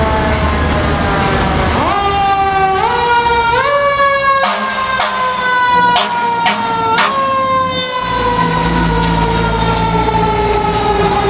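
Fire engine's siren winding up in steps, then slowly winding down in a long falling wail. Five short, sharp blasts come near the middle, and a heavy truck engine rumbles low beneath the siren near the end.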